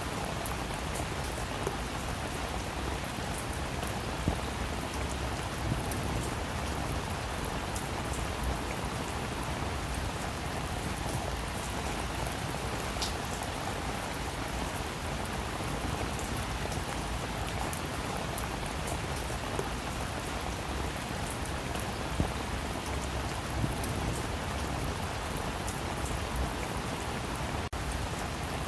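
Steady rain falling, an even hiss with a few individual drops tapping sharply now and then.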